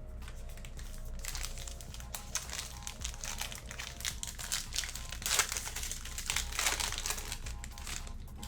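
A trading-card pack wrapper crinkling and tearing as it is opened by hand, crackling in uneven bursts for several seconds. Faint background music underneath.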